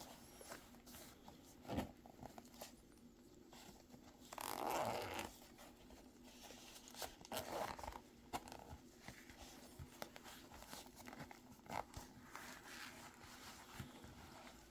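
Zipper of a small EDC pouch being drawn open, with a longer rasp about four seconds in and another around seven seconds, among small clicks and rustles of gear being handled.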